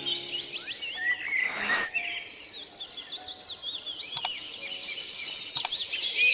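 Many small birds chirping in quick, short notes, with a brief rush of noise about one and a half seconds in and two faint clicks near the end.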